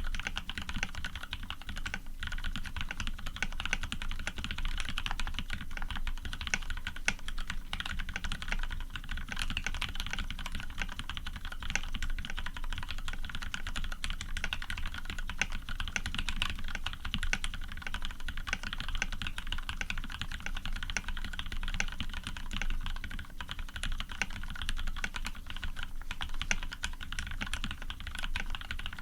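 Continuous fast typing on an Orion v2.5 custom mechanical keyboard with lubed Cherry Retooled Black linear switches, PBT keycaps and an aluminium plate: a dense, steady stream of keystroke clacks.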